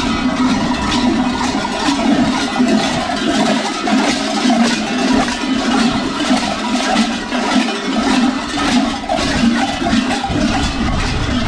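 Dense, continuous clanging of many large goat bells strapped around the waists of Skyros Geroi carnival dancers, shaken by their jumping, dancing steps.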